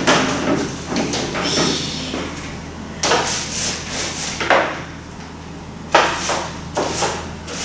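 Irregular knocks, clatters and scrapes of painting work with a stepladder, paint tools and containers being handled. The sharpest clatters come about three seconds in and about six seconds in.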